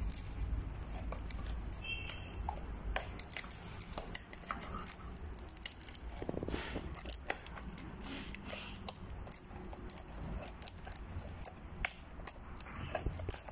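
Pleated lampshade rustling and crinkling as it is worked onto a thin wire lampshade frame by hand, with many small scattered clicks and taps.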